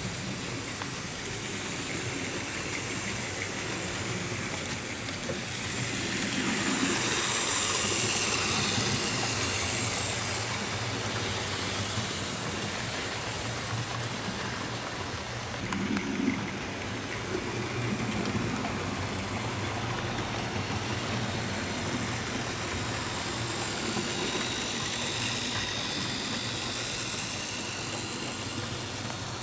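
HO-scale model steam train running along the layout track: a steady rolling and motor noise with a high hiss. It swells loudest as the train passes close, about six to ten seconds in.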